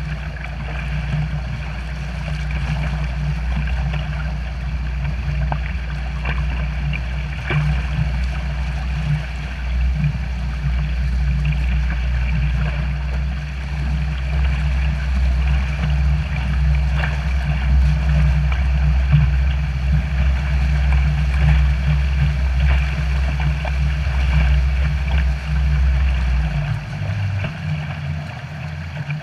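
Water churning and splashing in a pontoon boat's propeller wake as a watercraft is towed through it, over a steady low rumble that drops away near the end.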